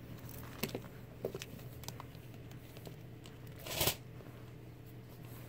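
A few light clicks of a bag's metal chain strap being handled, then a brief rustle a little under four seconds in as the bag is turned over.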